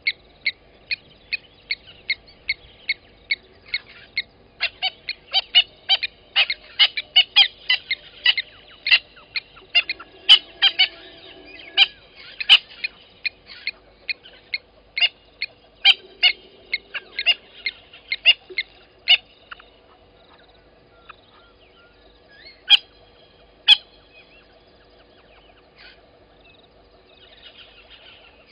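A long run of short, sharp, high-pitched animal calls, repeated two to three times a second, with several callers overlapping in the middle. After about twenty seconds it thins out to a few single calls.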